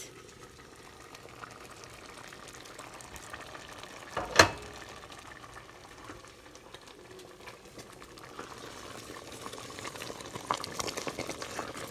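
Green lentil stew simmering in an uncovered stockpot, a steady bubbling that grows louder near the end. About four seconds in there is one sharp, ringing clink from the pot's glass lid.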